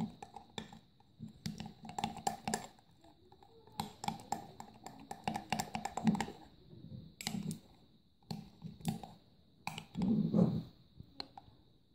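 Metal spoon stirring and scraping in a Pyrex glass measuring jug: irregular clinks and scrapes of metal against glass, with a louder burst of scraping about ten seconds in.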